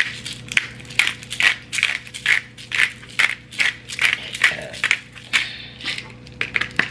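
Hand-twisted pepper grinder grinding peppercorns: a steady run of short rasping crunches, about two a second, easing off about five seconds in.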